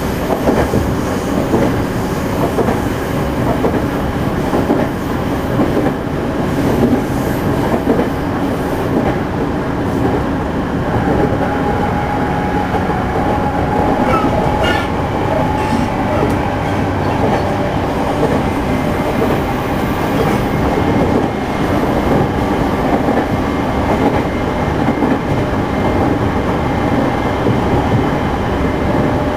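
Running noise inside a JR Central 211 series motor car (KuMoHa 211-5612) at speed: a steady rumble of wheels on rail with rail-joint clicks and the hum of its self-ventilated traction motors. This car is one known for an unusually loud, abnormal motor noise. Faint steady tones come and go over the rumble.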